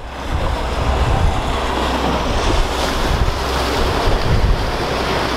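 Wind buffeting the microphone over the wash of choppy water, with a steady low rumble underneath, as a motorboat speeds past.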